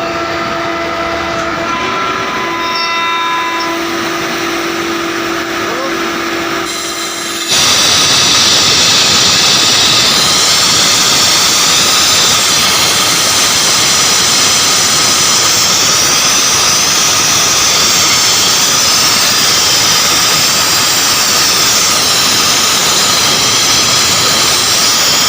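Air compressor running with a steady hum. About seven seconds in, a sudden, much louder hiss of compressed air rushing out begins and carries on steadily.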